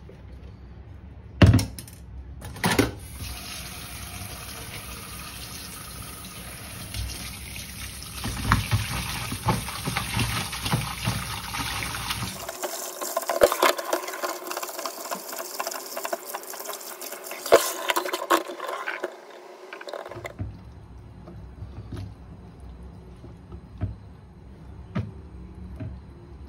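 Water running or being poured, a steady hiss that starts after two sharp knocks. About halfway through it gives way to a busier stretch of splashing and clatter, and after about twenty seconds only a few light clicks remain.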